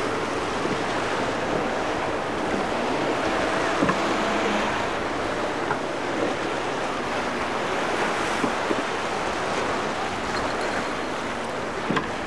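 Steady rush of breaking waves in a rough inlet, with wind on the microphone and a single outboard motor running under it.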